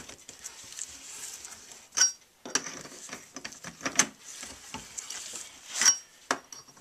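A metal handle clinks onto the ends of steel EMT pipes and turns them, giving three sharp, ringing metallic clinks about two seconds apart. Between the clinks comes a scraping rub as the pipes rotate, turning the tek screws that churn the vermicompost inside the worm bin.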